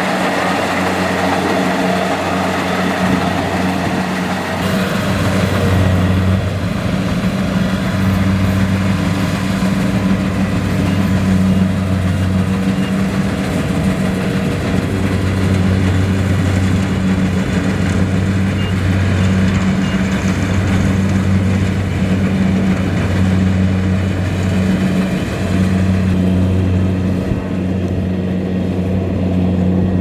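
Kubota DC-70 Plus rice combine harvester running while it cuts rice: a steady, loud diesel engine hum over the machine's broad mechanical noise, its low tone swelling and dipping every couple of seconds.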